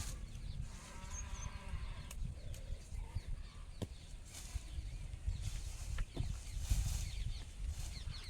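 A faint animal call about a second in, over a steady low rumble, with a few sharp clicks.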